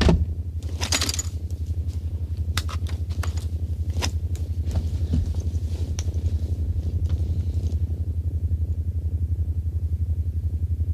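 Deep electric hum of a time machine, pulsing rapidly and evenly, with scattered sharp clicks and clanks over it, most of them in the first half.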